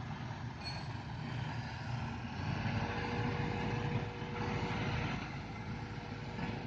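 Kobelco SK200 hydraulic excavator's diesel engine running under work, a steady low rumble; a thin steady whine joins about three seconds in.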